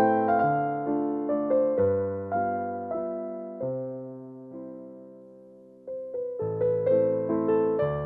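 Background music: a gentle piano-like keyboard tune played note by note, dying away in a short lull about five seconds in before the notes start again.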